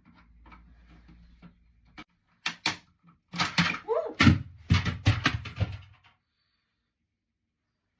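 Plastic smoke detector being worked loose from its mounting base: a few sharp clicks, then a flurry of loud knocking, clicking and rattling with a brief falling squeak, which cuts off abruptly.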